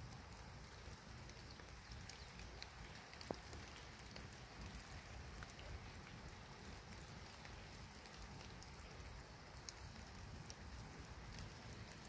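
Faint light rain: a steady soft hiss with scattered small ticks of drops, over a low rumble, and one sharper click about three seconds in.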